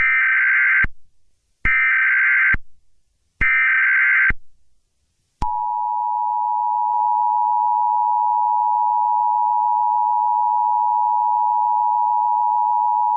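Emergency Alert System alert tones: three short buzzing bursts of the SAME header code, each under a second with a gap of about a second between them. About five seconds in, the steady two-tone EAS attention signal begins and holds.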